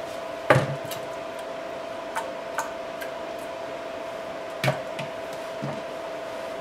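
Plastic washbasin drain-trap pieces knocking against a plastic basin as they are handled. There is a sharp knock about half a second in, lighter taps around two and a half seconds, and another knock near five seconds, over a steady faint tone.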